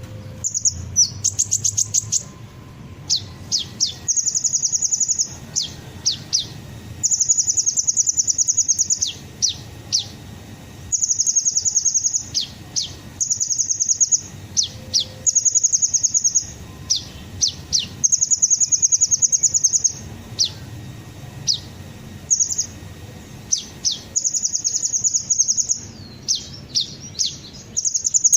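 Sunbird ('kolibri ninja') singing: high, rapid trills lasting a second or two, alternating with short, sharply falling notes, repeated over and over.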